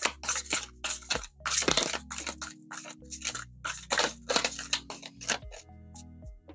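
Oracle cards being shuffled by hand: a quick run of crisp rustling swishes, about three a second, that stops about a second before the end.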